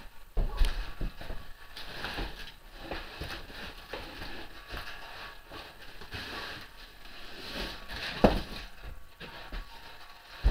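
Unpacking a boxed metal lathe stand: irregular knocks, scrapes and rattles of the packaging and metal parts being handled, with a loud knock about eight seconds in.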